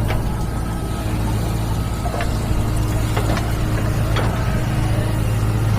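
Heavy diesel engine running steadily, with several short sharp knocks over it.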